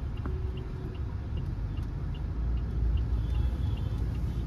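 Inside the cabin of an MG Hector with its 1.5-litre turbo-petrol engine, driving slowly: a steady low engine and road rumble. Over it the turn indicator ticks lightly, about two to three times a second, as the car turns.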